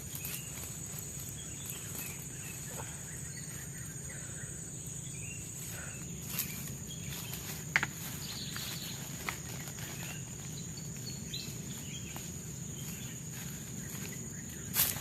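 Forest insects keeping up a steady high-pitched drone, over a low background hum. A few sharp clicks and snaps fall here and there, the loudest near the end.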